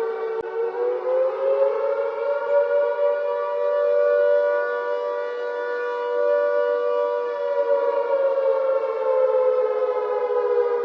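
Civil defence air-raid siren wailing as a warning of incoming missile attack. Its pitch rises over the first couple of seconds, holds, then slowly falls from about three-quarters of the way through.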